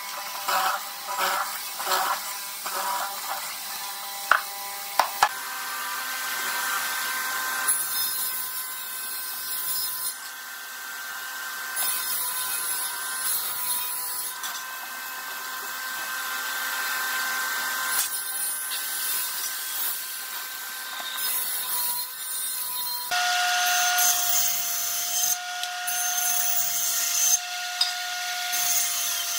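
A hollow-chisel mortising machine running, its chisel plunging repeatedly into a wooden beam to cut a mortise. Near the end a table saw runs and cuts through a board.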